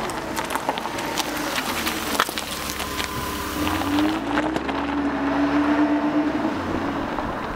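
A vehicle engine running, with scattered clicks. Its pitch rises about three and a half seconds in and holds higher before easing near the end.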